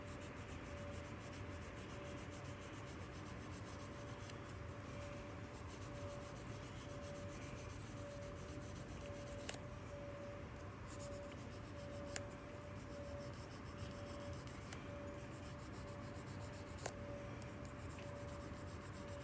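Gray micro-mesh sanding pad rubbed by hand over a tobacco pipe stem, a faint steady scratchy rubbing with a few light clicks. A steady faint hum runs underneath.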